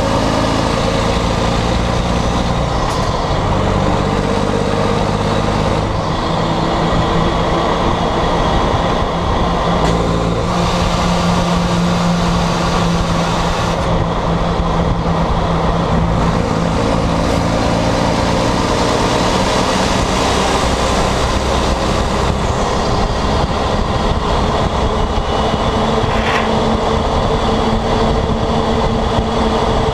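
Volvo FMX 460 truck's 13-litre inline-six diesel running loud through a broken, straight-through exhaust pipe while the truck drives. Its pitch steps up and down several times.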